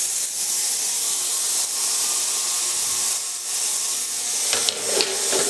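Vevor 22-litre ultrasonic cleaner running, a steady high hiss with a vibrating buzz from its transducers and the cavitating degreaser bath that holds a bike chain. A couple of light knocks come near the end.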